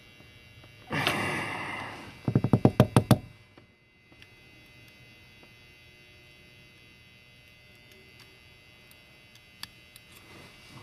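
Small metal lock parts being handled during disassembly: a short scraping rustle about a second in, then a quick run of about eight sharp taps, then only a faint hum with a few tiny clicks near the end.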